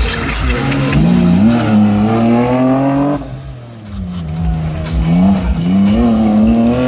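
BMW rally-sprint car's engine revving hard as it is driven around a tight course. The pitch climbs for about two seconds and cuts off sharply about three seconds in. After a short dip it climbs again toward the end.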